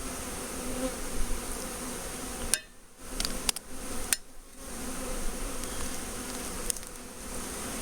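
A mass of honeybees from an opened package buzzing in a steady, low hum, dipping briefly twice near the middle.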